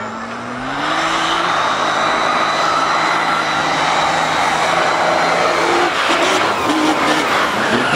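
Turbo diesel engine of a lifted mud-racing truck revving up hard, rising in pitch for about the first second, then running loud and steady at full throttle.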